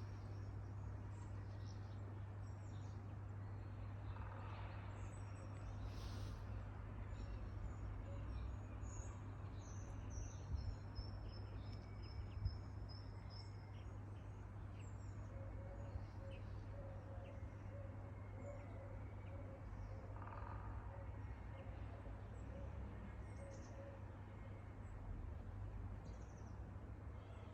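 Small birds chirping faintly and on and off, with a quick run of high chirps about ten seconds in, over a steady low hum of city background noise.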